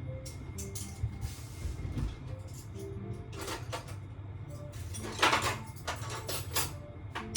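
Household handling noises over a steady low hum: scattered clicks and knocks, a short hiss about a second in, and louder clusters of knocks and clatter about three and a half and five seconds in.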